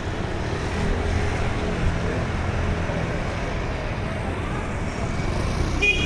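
Street traffic: a steady low rumble of passing motor vehicles with faint voices, and a short sharp sound near the end.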